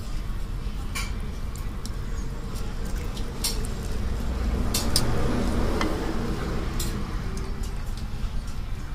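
Several scattered clinks of chopsticks and a ceramic soup spoon against a noodle bowl while eating, over a steady low background hum.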